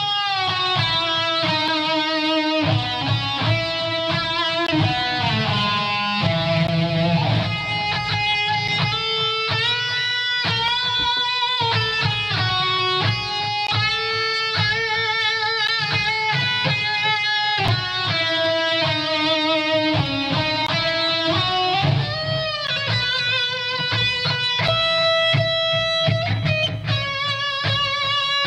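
Live blues band: a Stratocaster-style electric guitar plays a lead solo of sustained, bent notes with vibrato, over electric bass and drums.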